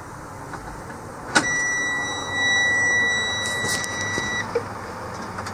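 A click, then the dashboard warning buzzer of a 2007 Freightliner M2 truck sounds one steady, high electronic beep for about three seconds and cuts off.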